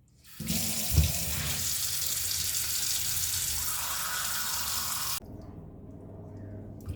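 Tap water running hard into a sink to rinse cleaned sardines, with a single thump about a second in. The water is shut off abruptly about five seconds in.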